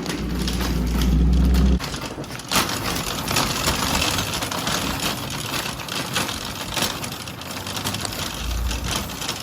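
Car moving, heard from inside the cabin: steady road and tyre noise, with a loud low rumble for the first couple of seconds and a single knock a little later.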